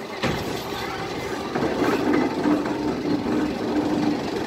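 Mine-cart-style roller coaster car running up an incline on its track: a steady rumble, with a short tone repeating in the second half.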